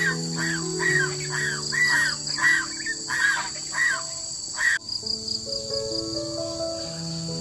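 Insects buzzing steadily in a high, unbroken drone, with a bird chirping over it in quick repeated calls, two or three a second, that stop abruptly about five seconds in. Soft background music with long held notes runs underneath.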